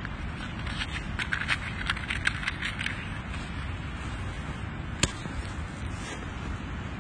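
A quick run of light clicks and clatters, then one sharp click a couple of seconds later, over a steady low outdoor rumble.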